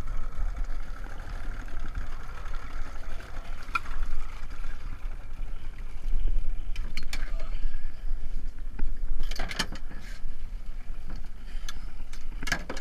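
Choppy seawater splashing and slapping against a small aluminium boat, under a steady low rumble of wind on the microphone. A few sharp knocks and clatters on the metal hull come as a speared cod and the diver's gear come over the side, the loudest about seven and nine and a half seconds in, and another near the end.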